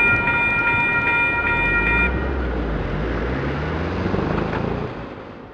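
Level-crossing alarm bell ringing about two and a half times a second, stopping about two seconds in, over the low rumble of a passing train. A rising engine note follows as a vehicle pulls away, and the sound fades out near the end.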